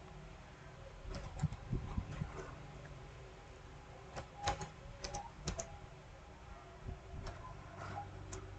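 Computer keyboard being typed on: key clicks in three short bursts with pauses between.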